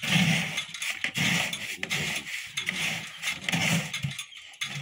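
A cow being hand-milked: milk squirting into a pail in a steady rhythm, about two squirts a second.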